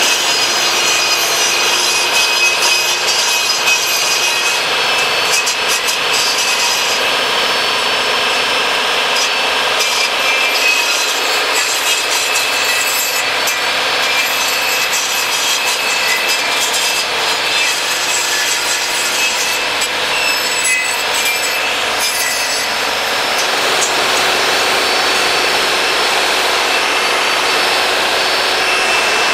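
Portable table saw running, its blade cutting into a wooden dowel that is rotated by hand in a plywood jig so that it is shaved round to size. A steady motor whine with the rasp of wood being cut throughout.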